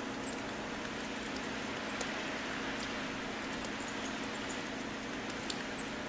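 Steady outdoor hiss with a low steady hum under it, and faint short high chirps from small birds scattered through it.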